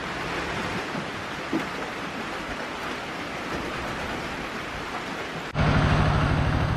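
Steady rain falling, an even hiss. About five and a half seconds in it cuts off abruptly, and a louder, steady low drone with a fast, even pulse takes over.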